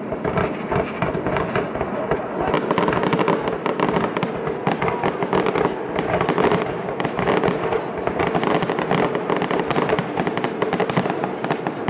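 Fireworks display: a dense, continuous barrage of many bangs and crackles, with no break.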